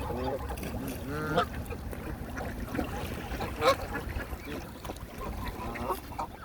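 Waterfowl honking: about four separate calls a second or two apart, over a steady low rumble.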